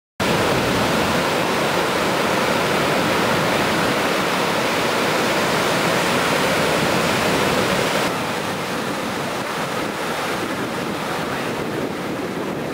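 Ocean surf breaking and washing in, a dense steady rush with wind buffeting the microphone. It cuts in suddenly at the start and drops a little in level about eight seconds in.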